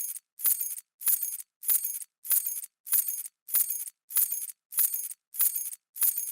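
A bunch of metal keys dropping and jingling, over and over. There are about ten short, bright clinks, each lasting under half a second, coming at an even pace of roughly one every 0.6 seconds with brief silences between them, like a repeated sample.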